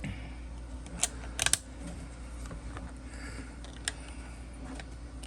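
Light clicks and knocks of 3D-printed plastic tool-box parts being handled: one click about a second in, a quick cluster of clicks just after, and a single click near the end, over a low steady hum.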